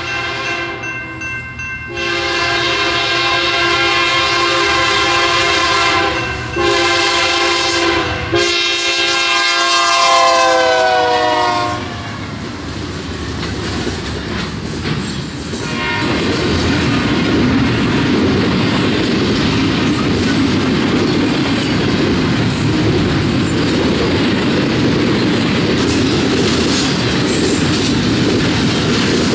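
A BNSF freight locomotive's horn sounds the grade-crossing pattern of long, long, short, long as the train approaches. The last long blast drops in pitch as the locomotive passes. The train then rolls by in a steady rumble of wheels and cars, with a rhythmic clickety-clack over the rail joints.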